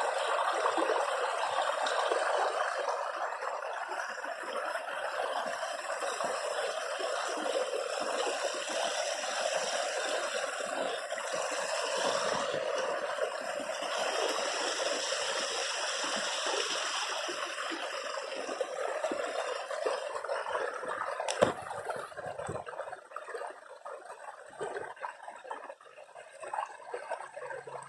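Running water, a steady rushing and trickling like a stream. There is one sharp click about 21 seconds in, and after it the water sound is quieter for the last few seconds.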